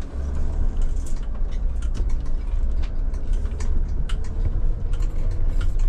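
Steady road and engine rumble inside the cab of a moving Mercedes van, with scattered light clicks and rattles.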